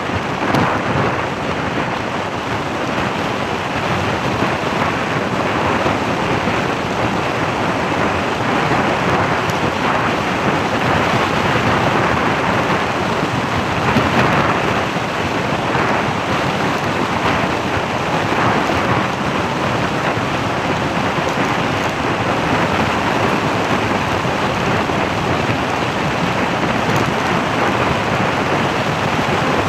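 Steady rushing, fluttering wind noise buffeting the microphone while travelling along a road.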